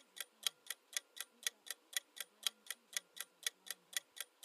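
Countdown-timer clock ticking, about four even ticks a second, stopping at the very end.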